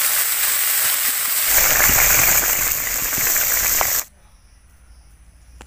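Small turmeric-coated fish sizzling as they fry in hot oil in a wok: a loud, even sizzle that cuts off suddenly about four seconds in, leaving a quiet background with a few faint clicks.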